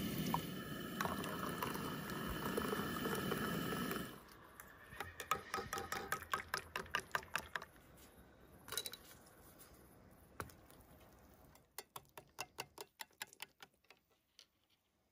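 Milk poured from a carton into a mug. Then a plastic spoon stirs hot chocolate in an enamel camp mug, clicking quickly against the sides, with a second bout of stirring clicks near the end.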